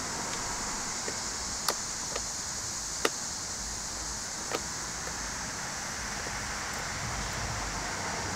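Metal clicks and taps of a cable lug being tightened onto a battery terminal: several short sharp clicks, the loudest about three seconds in, over a steady hiss.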